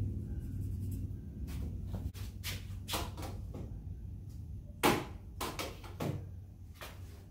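Masking tape being pulled off the roll in a series of short rasping tears, about eight in all, the loudest just before the halfway point, as strips are laid on a golf cart's windshield post.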